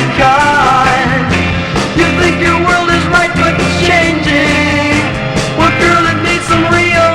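A baroque pop song playing: a full band with a steady beat and a bending lead melody line over bass.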